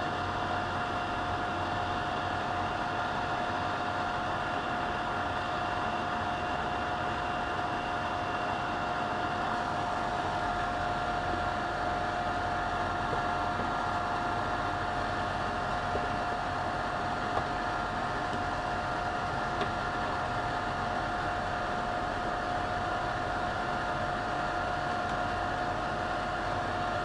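A 24-volt cabinet extraction fan running steadily: an even rush of air with a constant high tone over it.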